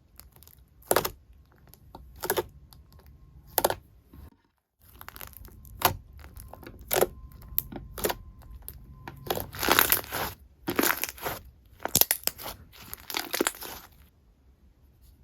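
Slime being squeezed and stretched by hand, giving sharp crackling pops and crunches at irregular intervals, thickest around ten to thirteen seconds in, then stopping shortly before the end.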